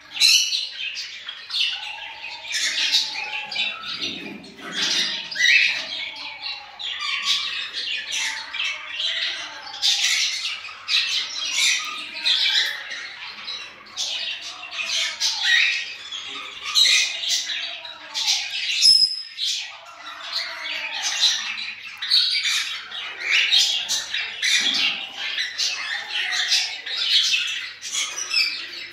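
Cockatiels calling over and over in shrill, high-pitched calls, with a brief break marked by a click about two-thirds of the way through.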